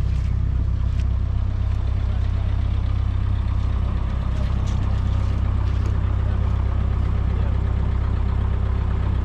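Tractor engine idling steadily: an even, low rumble that holds at one level.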